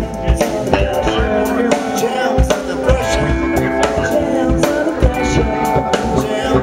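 Live band playing a funk groove: drum kit, electric bass and a man singing into the microphone.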